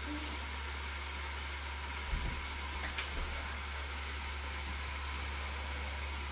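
Steady hiss of steaks sizzling between the closed hot plates of a Tefal OptiGrill electric contact grill, over a low steady hum, with a soft knock about two seconds in.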